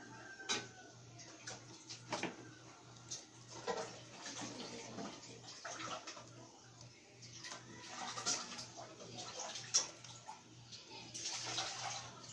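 Laptop keyboard typing: irregular keystroke clicks with pauses between them, over a steady low hum.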